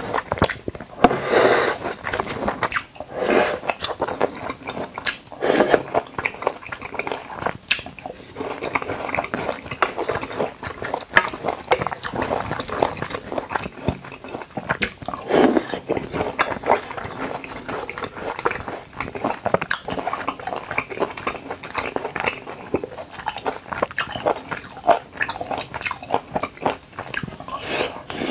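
Close-miked mouth sounds of someone biting and chewing watermelon and konjac jelly, with many small irregular wet clicks throughout.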